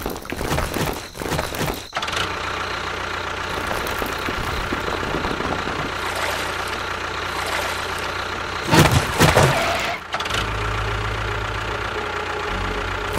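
Miniature model tractor running steadily, a continuous engine-like hum. There is a brief louder burst about nine seconds in, and the low hum changes just after that.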